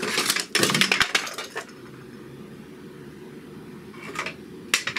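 Clatter of small hard objects rattling and knocking together on a desk for about a second and a half, followed by two short knocks near the end.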